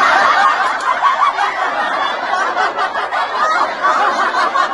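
Several voices laughing together in a steady, continuous stream of chuckles and snickers, like a comedy laugh track.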